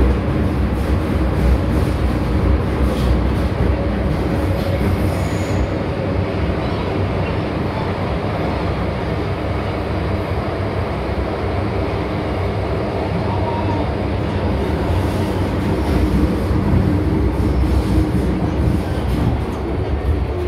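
Inside a moving MTR M-Train metro carriage running through the Island Line tunnel: a steady, loud rumble of wheels on rail and running gear.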